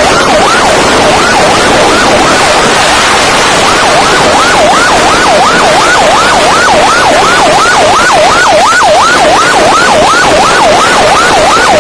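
Siren in a fast yelp, its pitch sweeping up and down about three times a second without pause, over a loud hiss.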